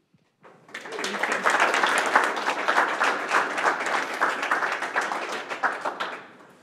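A small audience applauding, starting about half a second in and dying away near the end.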